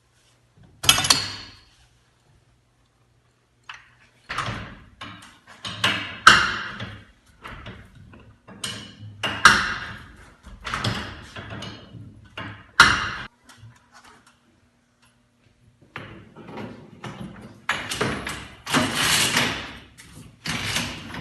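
Metal clanking and banging of tools and hardware while a broken garage door torsion spring is taken down and replaced: a string of sharp knocks and rattles with ringing, broken by two sudden silences.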